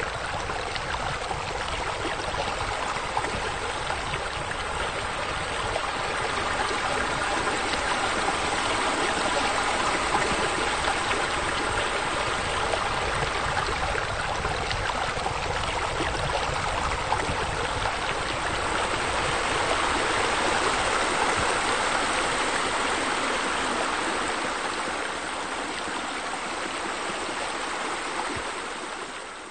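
Steady running, splashing water, an even rush with no breaks, fading away over the last few seconds.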